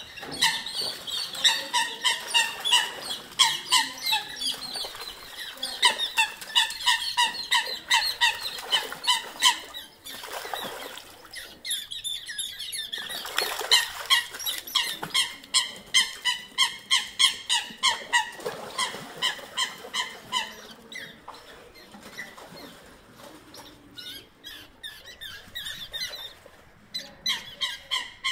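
Eurasian coots fighting on the water: a long run of short, sharp calls in quick succession, with bouts of splashing and wing-flapping about ten and fourteen seconds in.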